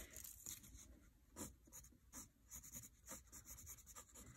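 Pencil scratching on paper in a series of short, faint sketching strokes.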